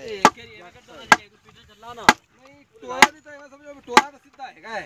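A wooden plank brought down hard on a Petter-type engine that is being fitted, giving five sharp knocks about once a second.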